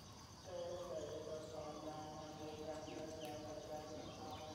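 Nursing puppies whimpering and whining in a drawn-out, wavering whine as they jostle at their mother's teats, over steady insect chirping.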